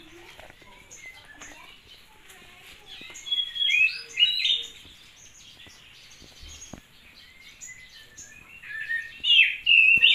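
Small birds chirping in quick, high, gliding chirps, with loud clusters about three to four seconds in and again near the end and fainter chirps in between.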